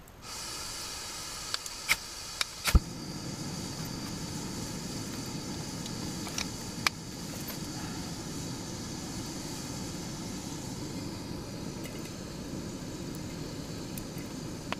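Backpacking gas stove being lit to heat water: gas hissing on, a few sharp clicks, then the burner catching nearly three seconds in and running steadily with a low rush and a hiss.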